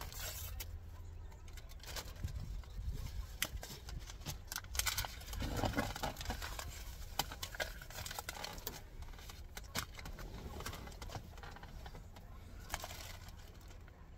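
Hands handling food packaging at close range: soft rustling and scattered small clicks, busiest about halfway through, over a low steady rumble.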